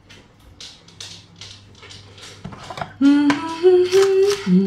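A woman humming a tune with no words, held notes stepping up and down, starting about three seconds in, over knife strokes chopping spring onion on a chopping board. Before the humming, faint even strokes come about three a second.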